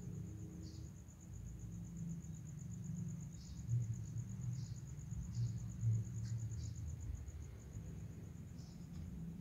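An insect trilling: a steady, high, fast-pulsing note, over a low rumble with a few soft thumps about four and six seconds in.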